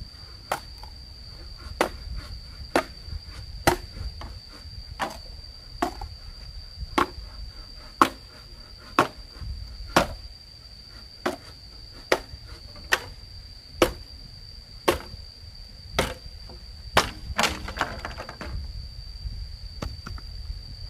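Repeated blows of a hand tool, about one a second and a little uneven, with one blow near the end ringing briefly. Under them runs a steady, high, unbroken insect trill.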